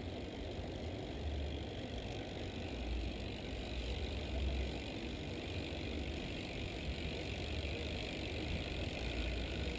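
Mountain bike rolling along asphalt, tyre and drivetrain noise under uneven wind buffeting on the microphone.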